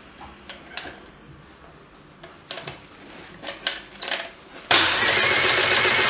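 Light clicks as the front-panel push buttons of a Hyundai HAT12 air circuit breaker are pressed, then about three-quarters of the way in a sudden loud start of the breaker's motor, running steadily with a high whine, typical of the motor operator recharging the closing spring.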